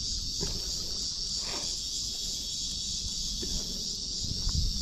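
Steady, unbroken chorus of summer insects, high-pitched, over a low rumble.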